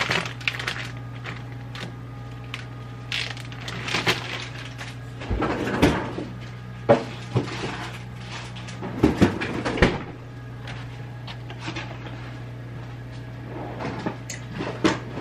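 Kitchen handling noises: scattered knocks, clacks and clatters of things being moved and set down, with a few sharper knocks past the middle, over a steady low hum.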